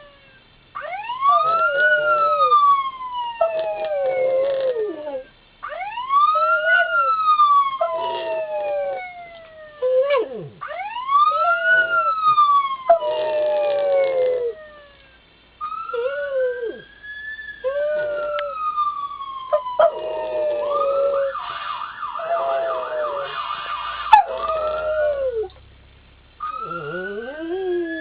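Police and ambulance sirens wailing, rising and falling about every five seconds, with a dog howling along in short wavering howls between the sweeps. About twenty seconds in, a siren switches to a fast yelp for a few seconds.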